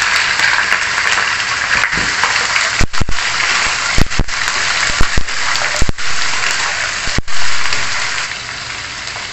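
Raw chicken wings sizzling in hot oil in a wok just after going in. A wooden spatula stirs them and knocks against the pan several times. The sizzle eases slightly near the end.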